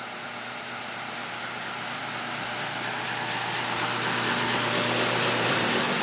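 Ritter R703 edge sander running, its 2-horsepower Baldor motor and sanding belt making a steady, quiet, smooth hum and hiss that slowly grows louder. Near the end the machine is switched off: the hum stops and a whine falls steadily in pitch as the motor begins to spin down.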